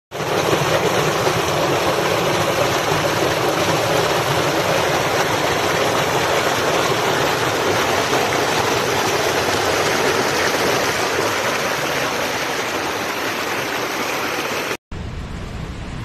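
Waterfall pouring down a tiered rock face: a loud, steady rush of falling water. Near the end the sound cuts out for an instant and comes back quieter and deeper.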